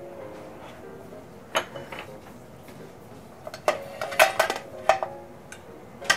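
A metal ladle clinking against an aluminium saucepan: a few sharp metallic clinks, with several in quick succession about four to five seconds in, and a metal pot lid clanking near the end.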